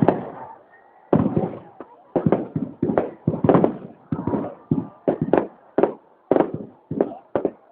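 Fireworks bursting in a rapid run of loud bangs, about two or three a second, each dying away in a short echo.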